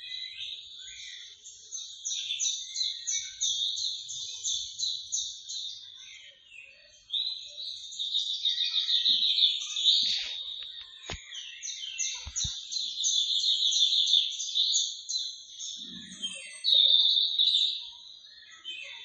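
Birds calling: quick series of high, repeated chirping notes, about four or five a second, rising and falling in loudness throughout, with a couple of faint low knocks in the middle.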